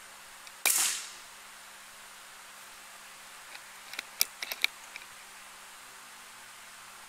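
A single sharp air-rifle shot about a second in, with a short fading tail, followed a few seconds later by a quick cluster of small sharp clicks.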